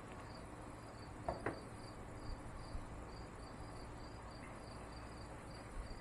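An insect chirping steadily outdoors in short, even, high-pitched pulses, about three a second, over a low background hum. A brief louder noise comes about a second and a half in.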